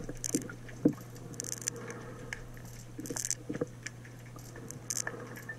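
Underwater handling noise: scattered clicks and ticks as a wire hook-release tool works a hook out of a cabezon's mouth, over a steady low hum.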